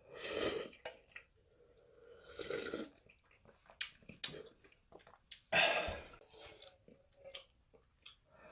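Close-miked eating of Samyang Ramyun instant noodles: three longer wet slurps or sips, at the start, about two and a half seconds in and about five and a half seconds in, with chewing and small sharp clicks in between.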